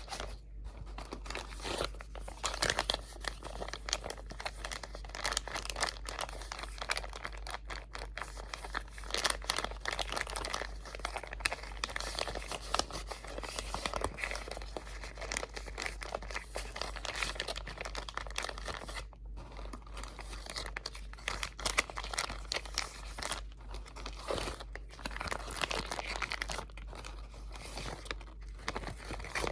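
Close-miked crinkling of crinkly material being scrunched and handled. It is a dense run of crackles, broken by brief pauses about half a second in, around two-thirds through, and near the end.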